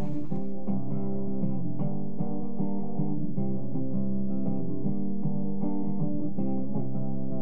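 Background instrumental music: an even run of picked string notes over a steady bass line.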